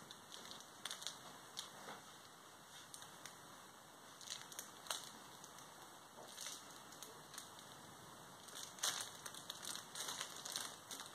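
Faint rustling and crinkling of a fabric cat tunnel as cats move inside it and paw at its opening. It comes as scattered short crackles that grow busier in the last few seconds.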